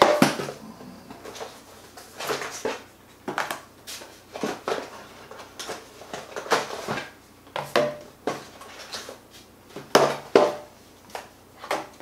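Cardboard packaging of a DJI Mavic Mini Fly More Combo being unpacked by hand. The white box and its inserts rustle, scrape and knock as they are lifted, slid apart and set down on a glass-topped table, in irregular bouts with short pauses.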